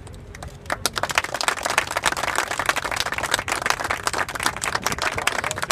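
A group of people applauding, starting about a second in: many quick, irregular claps.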